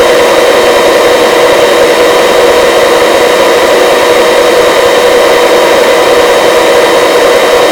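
Search-and-rescue helicopter in flight, heard on the crew's radio and intercom audio: a steady, loud hiss of engine and rotor noise with a constant whine that does not change.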